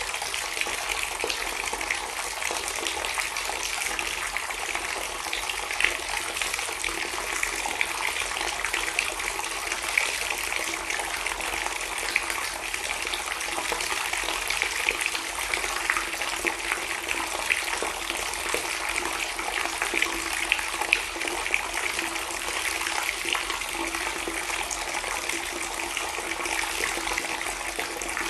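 Water pouring steadily into standing water, a continuous splashing rush without let-up.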